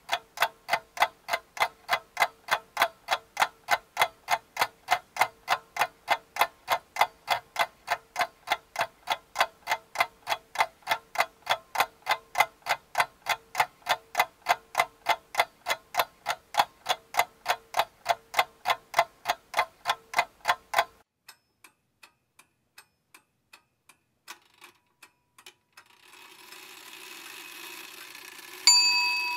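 Regular mechanical ticking, about two and a half ticks a second, which stops suddenly about two-thirds of the way through, leaving a few faint ticks. Near the end a single bright, ringing ding sounds.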